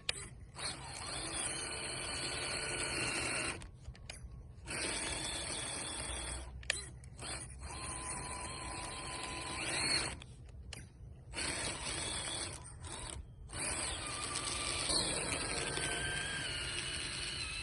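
Traxxas TRX4 Sport RC truck's electric motor and geared drivetrain whining in bursts as the throttle is applied and released, stopping briefly several times, with the pitch rising near the end.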